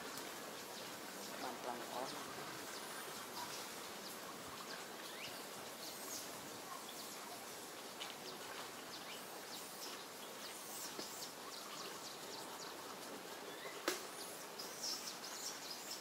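Outdoor ambience of a steady background hiss with faint, scattered bird chirps, and a single sharp click about fourteen seconds in.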